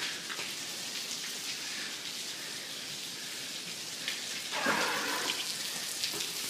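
Steady rain hiss, with a louder swishing rush about two-thirds of the way through.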